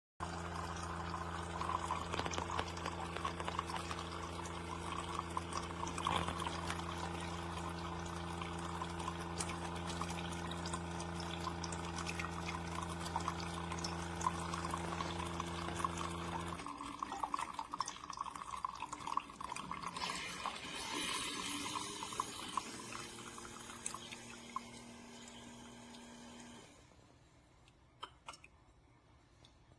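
Keurig K-Elite single-serve coffee maker brewing: the pump runs with a steady hum while liquid pours into the cup. About halfway through the hum stops, and trickling and sputtering follow as the last of the brew drains, dropping away near the end.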